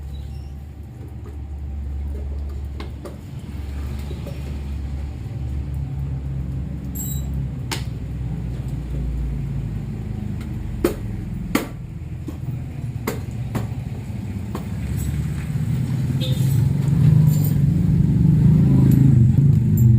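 A motor vehicle engine running with a steady low rumble that grows louder over the last few seconds, with a few sharp metallic clicks in the middle.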